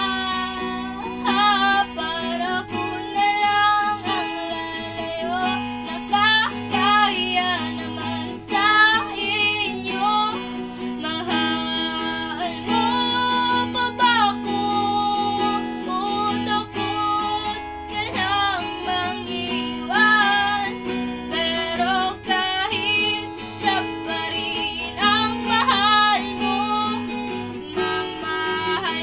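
A girl singing a ballad, accompanying herself by strumming chords on an acoustic guitar.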